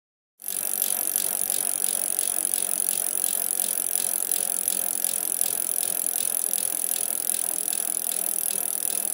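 Rapid, even ratchet-like clicking rattle, a sound effect, starting about half a second in and stopping abruptly.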